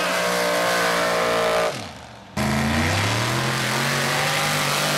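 Mud drag rail's open-header racing engine at full throttle as it runs down the dirt track. It cuts off about two seconds in, and a second rail's engine comes in with its note climbing, then holding steady, flames showing from its headers.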